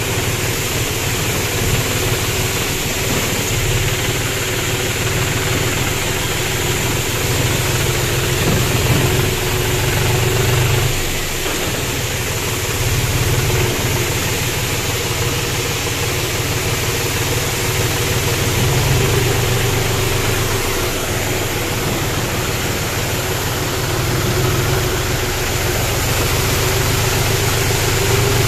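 John Deere 5039D tractor's three-cylinder diesel engine running steadily as the tractor drives slowly, over the constant rush of water pouring down a weir alongside.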